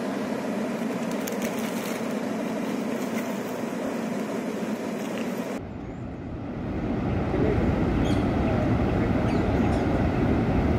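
Water pouring through the open spillway gates of a large dam and crashing into the river below, a steady rushing noise. About halfway through it changes to a louder, deeper rumble.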